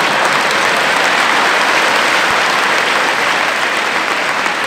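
An audience clapping in steady, dense applause.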